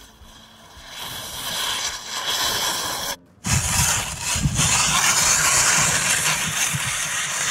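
Skis scraping over hard, icy spring snow during a descent, with wind buffeting the microphone. The sound drops out briefly about three seconds in, then comes back louder, with an uneven low rumble under the hiss of the scraping.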